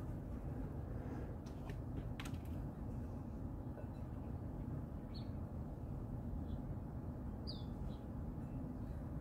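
Steady low outdoor background rumble, with a few faint clicks about two seconds in and two short, high bird chirps later on, the second one falling in pitch.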